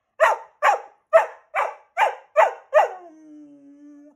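Keeshond barking in a quick, even run of seven short barks, a little over two a second. About three seconds in the barks give way to a quieter, drawn-out low whine that sinks slightly in pitch.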